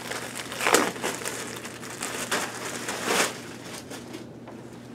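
Clear plastic bag crinkling as it is pulled open and a padded backpack is slid out of it, in a few loud bursts with softer rustling between, dying down about four seconds in.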